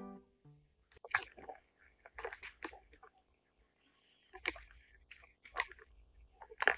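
Cat batting at the balls in a three-tier plastic ball-track cat toy: irregular sharp clicks and knocks of paw and balls against the plastic, with a faint low rumble of balls rolling in the track at times.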